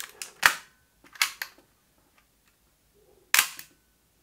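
Nikon F3's focal-plane shutter firing with the mirror locked up, so there is no mirror slap: a sharp click about half a second in, a quicker double click just over a second in, and another sharp click near the end.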